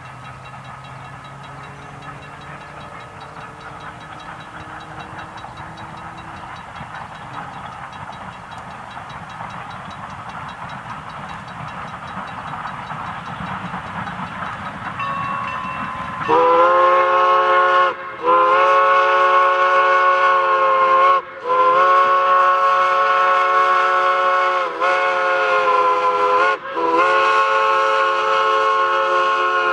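A steam train draws closer, its running noise slowly growing. About halfway in, a PRR three-chime steam whistle on Norfolk & Western 4-8-0 #475 starts to blow a loud chord in long blasts, broken by brief gaps where the pitch sags slightly.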